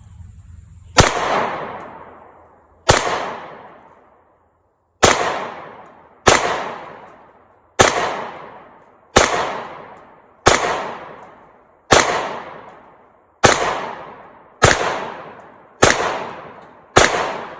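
Taurus 9mm pistol fired twelve times in slow, steady succession, a shot every one to two seconds, each sharp report dying away over about a second.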